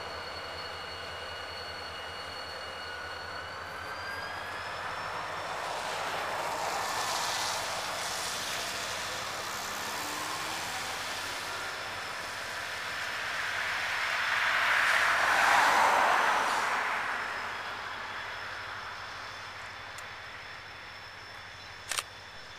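CSX freight train of tank cars rolling along behind two diesel locomotives, with a steady high whine over the running noise that shifts up slightly about four seconds in. The noise swells loudest a little past the middle, and there is a sharp click near the end.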